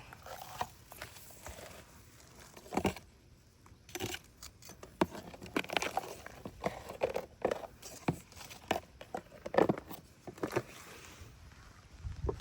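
Irregular rustling and crackling with soft knocks, of debris or leaf litter being disturbed, loudest a little before the middle and again near the end.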